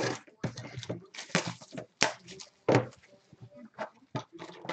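Utility knife slicing the case's cardboard and wrap, then cardboard hobby boxes being slid and handled: a string of short scrapes and rustles with a few knocks.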